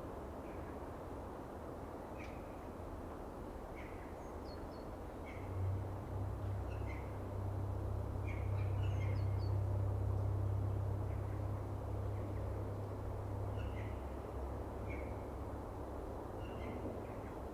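Small birds giving short, high chirping calls every second or so over a steady background hush. A low drone swells up about a third of the way in, is loudest around the middle and fades away again.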